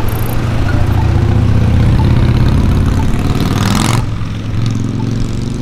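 Road traffic at a crosswalk: a vehicle engine runs with a steady low drone, and a passing vehicle's rush builds and cuts off sharply about four seconds in. A faint tick about once a second comes from the crosswalk push-button's locator tone.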